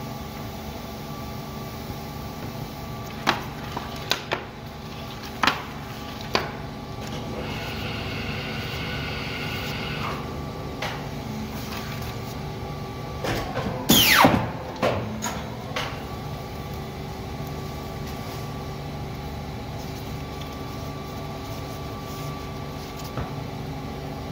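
Seypa 92 PMC guillotine paper cutter running with a steady machine hum, with a few sharp knocks in the first seconds and a brief hiss a few seconds later. About halfway through comes one loud cutting stroke with a falling screech as the knife goes through a stack of 115 g coated paper.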